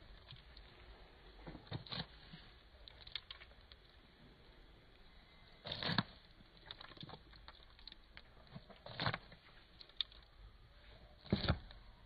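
Emus pecking mixed grain and pellets from a feed trough: irregular sharp clicks and rattles of beaks striking the feed, with a few louder strikes around halfway, about three-quarters in and near the end.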